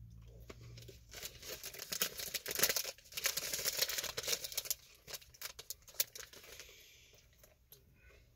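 Kit Kat's wrapper crinkling and crackling as it is handled. The crackle is densest from about a second in until about halfway, then thins to scattered crackles.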